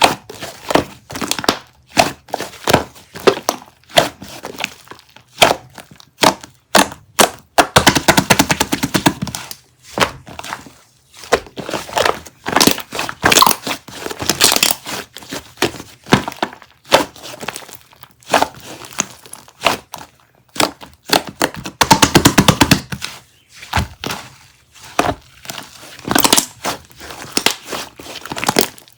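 Crisp crunching and cracking: a steady string of sharp snaps, with two runs of rapid crackling, about eight and about twenty-two seconds in.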